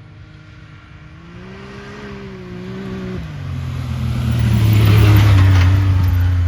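A motor vehicle engine running, its pitch rising and dipping, then a much louder low drone that builds to a peak about two-thirds of the way through.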